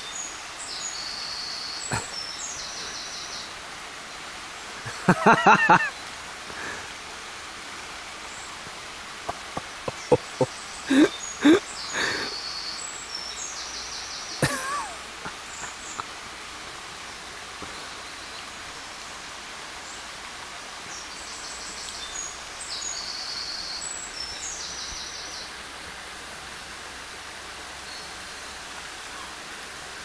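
Steady rush of a shallow burn running over stones, with a songbird singing short high phrases three times. A brief loud call comes about five seconds in, and a few short sharp sounds around ten to twelve seconds in.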